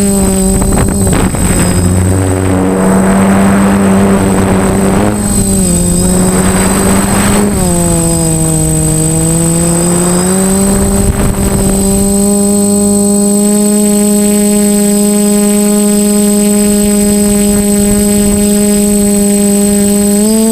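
DJI F450 quadcopter's brushless motors and propellers whining, the pitch dipping and rising as the throttle changes, then holding steady for the last several seconds. Wind buffets the microphone for the first several seconds and again around ten seconds in.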